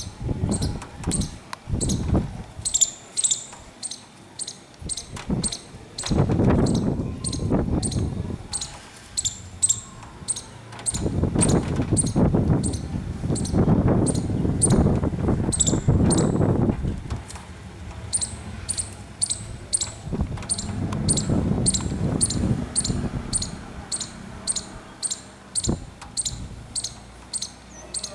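Squirrel's clicking alarm call: a sharp, high click repeated about twice a second, on and on. Stretches of louder low rumbling noise come and go beneath it.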